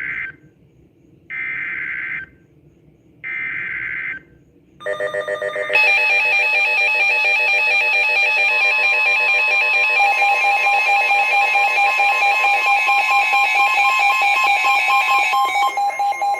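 Emergency Alert System tones: three roughly one-second bursts of digital SAME header data, about a second apart, announcing a new alert. About five seconds in, the loud alert attention signal starts: several steady tones sounding together with a fast pulsing.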